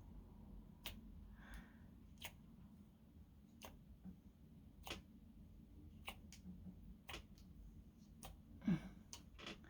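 Thick slime being handled, giving off faint, scattered sharp clicks about one every second.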